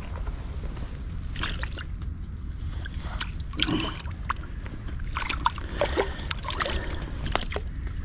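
Scattered rustles and clicks of a freshly caught perch being handled while it struggles, over a steady low rumble.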